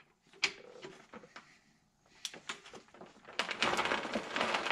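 Torque wrench ratcheting on a main bearing cap bolt of an International 986 tractor engine. A few scattered clicks come first, then a short pause, then a quick run of ratchet clicks over the last second or so.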